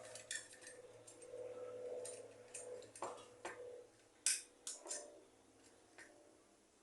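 A small metal tool scraping the enamel off a fan motor's thin copper winding wire: a series of short scrapes and clicks, the sharpest about four seconds in.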